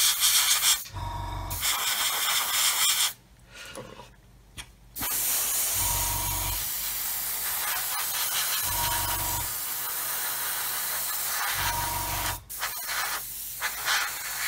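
Airbrush spraying paint: a hiss of air and paint mist in bursts, a spray of a few seconds, a short pause, a long steady spray of about seven seconds, then several short bursts near the end. A short low hum recurs about every three seconds underneath.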